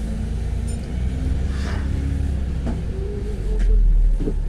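Steady low engine and road rumble of a moving double-decker bus, heard from inside on the upper deck.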